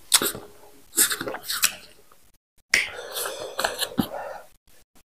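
Close-miked mouth sounds of eating by hand: chewing with wet smacks and sharp clicks, in short separate bursts and then a denser run about three seconds in.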